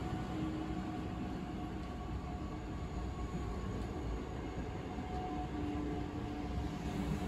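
South Shore Line electric multiple-unit commuter train rolling past along the platform as it pulls out: steady wheel and rail noise with a faint, even electrical hum.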